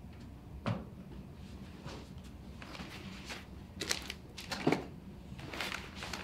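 Rustling and a few short light knocks of packing up: a backpack handled, a plastic water bottle and a laptop picked up off a wooden ledge.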